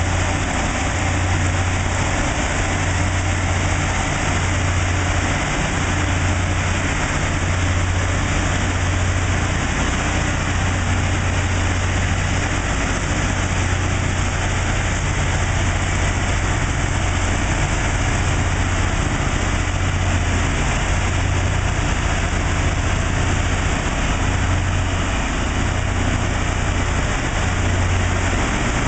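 Loram rail grinder at work: a steady low engine drone that swells and dips, under a continuous hiss as its grinding stones work the rail.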